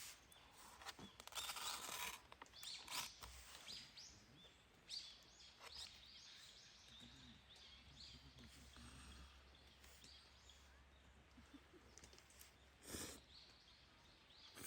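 Faint small-bird chirps repeating throughout, with a few brief rustling or handling noises, the loudest about a second or two in and near the end.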